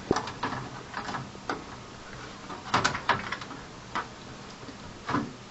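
Scattered light clicks and knocks as a part is pushed and lined up into a metal PC case, with a small cluster of taps about three seconds in.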